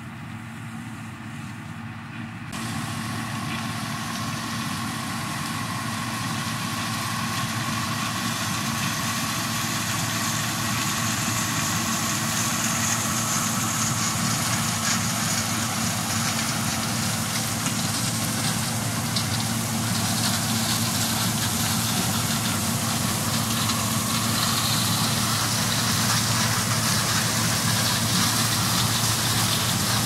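John Deere 6620 combine harvesting corn: a steady diesel engine drone under a broad hiss of crop going through the corn head. The sound jumps up suddenly about two seconds in, then grows louder as the combine comes closer.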